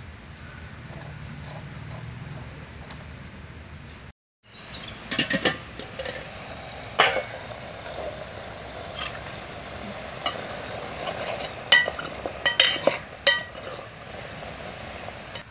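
A metal ladle stirring goat intestine and bottle gourd curry in a metal pot, with sharp clinks and scrapes of the ladle against the pot over a steady hiss from the bubbling curry. The sound drops out briefly about four seconds in.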